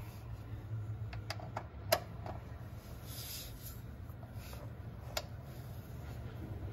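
A few sharp clicks from a ratchet wrench turning the transmission pan's torque-to-yield bolts through their final 180 degrees, over a low steady hum. The clicks come in a quick cluster over about a second early on, with one more about five seconds in.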